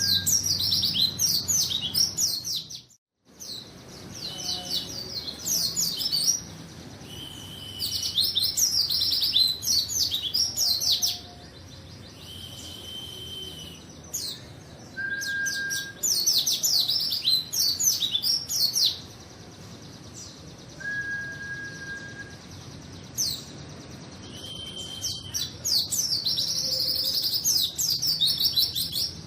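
White-eye (pleci) songbird singing: repeated bursts of fast, high twittering chirps a few seconds long, with short single level whistles in the pauses between them. There is a brief dropout about three seconds in.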